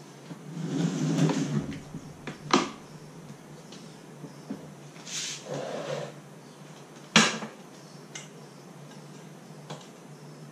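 A four-stroke lawnmower being tipped over onto its side on a concrete floor: a scuffling shuffle of handling, then a few sharp knocks and clunks as the mower body is set down, the loudest about seven seconds in.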